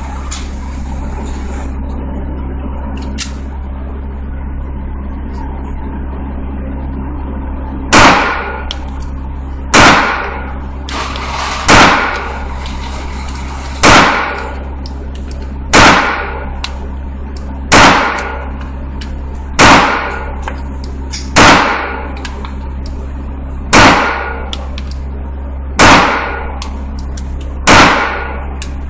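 Walther PPQ 9mm pistol fired in slow single shots: eleven shots about two seconds apart, starting about eight seconds in, each echoing off the walls of an indoor range. A steady low hum runs underneath.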